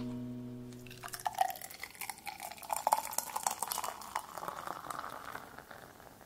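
Lager poured from a bottle into a glass, splashing and fizzing, starting about a second in. The pitch of the pour rises as the glass fills.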